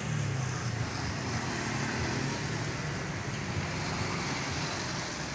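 Steady road traffic noise: vehicles running past on a road, with a low engine hum under an even wash of tyre and road noise.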